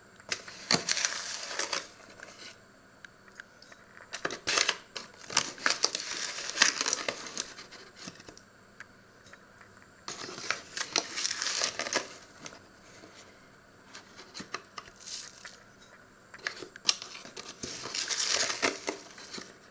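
Crinkling of a paper bag, in about five separate bursts, one of them lasting several seconds.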